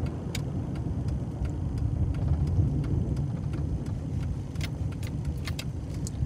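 Car cabin noise while driving: a steady low rumble of engine and tyres, with a few scattered sharp clicks.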